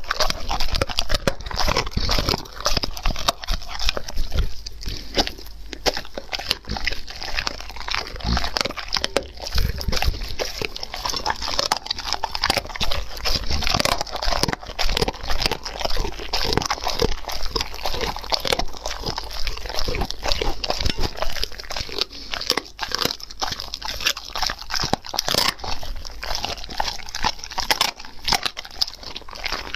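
German Shepherd dog chewing and crunching a piece of cooked meat, picked up close by a small microphone on the plate: a dense, unbroken run of crunches and wet chewing.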